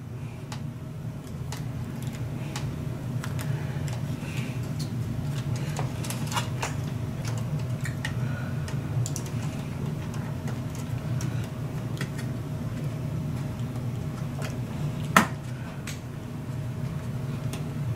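Small clicks and light rustles of adhesive tape and a flat ribbon cable being handled and fitted into a circuit-board connector, with one sharp click about fifteen seconds in, over a steady low hum.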